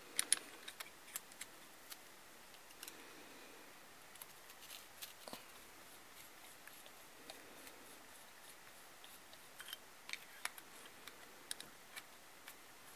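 Faint, scattered small clicks and taps of a hex driver and small metal and plastic helicopter parts being handled while a motor mount screw is driven into the brushless motor. The clicks bunch up at the start and again near the end, with a quieter stretch between.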